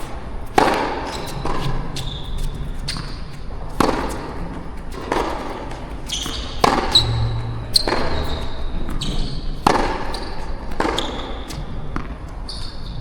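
Tennis balls being struck by rackets and bouncing on the court during a rally, a string of sharp pops roughly every second or so, with short high squeaks between hits. A steady low wind rumble sits underneath.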